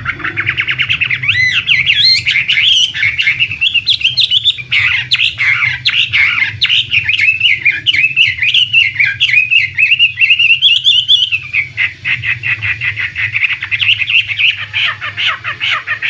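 Chinese hwamei singing a long, unbroken stream of rapid, varied whistled notes that rise and fall, over a faint low steady hum.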